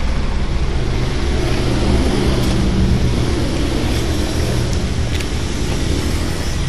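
An engine idling steadily, a low, even drone.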